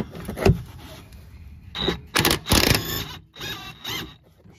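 Cordless DeWalt impact wrench on a rear sway bar end-link nut, run in several short bursts starting about a second and a half in, with a sharp click about half a second in.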